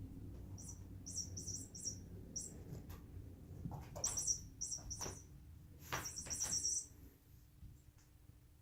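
Chirping bird toy giving short, high chirps in quick clusters, mixed with a few knocks of handling; it falls quiet about seven seconds in.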